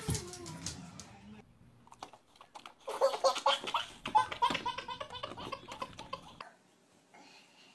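A toddler laughing hard in rapid, breathy bursts, starting about three seconds in and stopping abruptly about three and a half seconds later.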